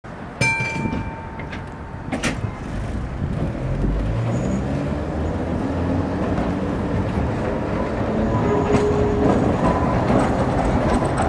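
Vintage tram pulling away from a stop over steady street noise, its motor whine rising in pitch as it gathers speed. A ringing tone sounds about half a second in, and a sharp click comes at about two seconds.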